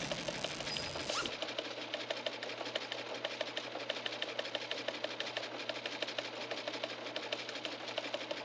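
Fast, steady mechanical clatter repeating several times a second over a constant hum, with a brief noisy sweep in the first second.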